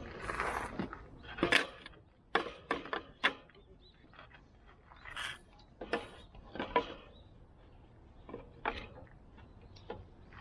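Irregular sharp clicks and knocks, about a dozen in a loose uneven run, the loudest clustered in the first few seconds.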